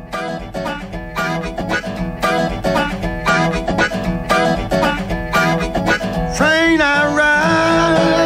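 Electric Chicago blues band recording: guitar picking a quick rhythm figure over a steady bass line. About six seconds in, a held, bending lead note enters over it.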